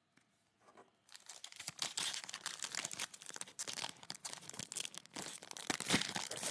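A foil trading-card pack wrapper being torn open and crinkled in the hands: a dense crackling that starts about a second in and goes on.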